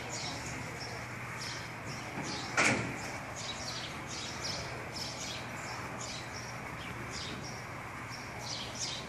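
Birds chirping over and over, short high chirps, over a steady low hum. A single loud bang about two and a half seconds in.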